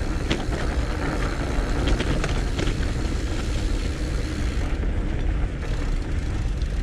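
Salsa Mukluk fat bike's 4.6-inch 45NRTH Dillinger 5 tires rolling along a dirt trail covered in dry fallen leaves: a steady low rumble with scattered crackles of leaves and twigs under the wheels.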